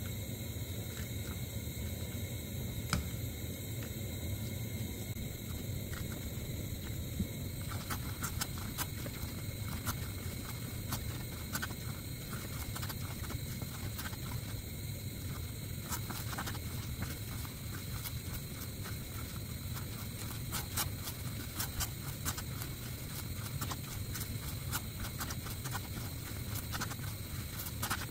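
Wooden spatula stirring and folding a thick, sticky glutinous rice and coconut milk mixture in a stainless steel pan: wet, sticky scrapes and small clicks, busier from about a quarter of the way in, over a steady low hum.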